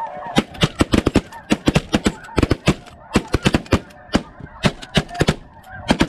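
A volley of shotgun blasts from several hunters firing at a flock of snow geese at once: dozens of shots in quick, overlapping succession for about five seconds. Snow goose calls carry on underneath.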